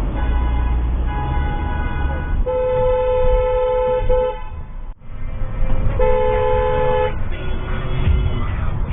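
Car horns honking in long held blasts over road noise. A higher-pitched horn sounds for about two seconds, then a louder, lower horn holds for about two seconds. After a brief dropout about five seconds in, the lower horn blasts again for about a second.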